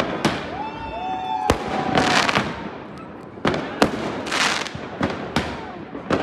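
Fireworks going off: about eight sharp bangs at uneven intervals, with bursts of fizzing crackle between them. A long held whistle-like tone sounds from about half a second in for over a second.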